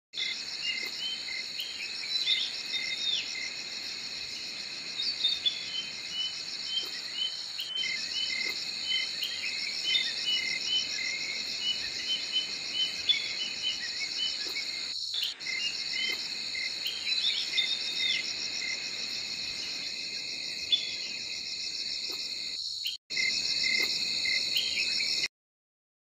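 A steady, rapidly pulsing high insect trill, like a chorus of crickets, with many short bird chirps and whistles over it. There is no deep booming. The sound breaks off briefly about three-quarters of the way through and cuts off just before the end.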